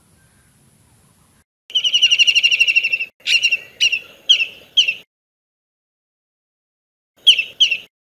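A bird call sound effect: a fast, loud trill lasting about a second and a half, then four sharp separate calls, a pause of about two seconds, and two more calls near the end. Before it, about a second and a half of faint outdoor background.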